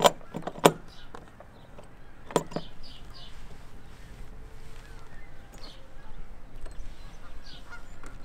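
Sharp metallic knocks of a stainless-steel stanchion tube against its deck base as it is seated, two near the start and two more in quick succession about two seconds in.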